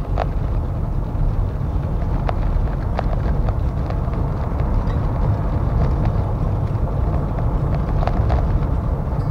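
Car tyres rumbling over a cobblestone road, heard from inside the cabin, with scattered light knocks and rattles.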